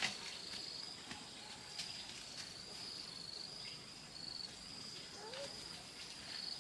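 Faint, high-pitched insect trilling, like crickets, in long broken stretches, with a few soft clicks and a brief faint rising call about five seconds in.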